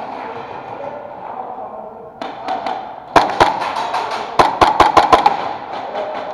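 Sharp cracks of airsoft gunfire in a large echoing hall: two shots about three seconds in, then a rapid string of about six more a second later.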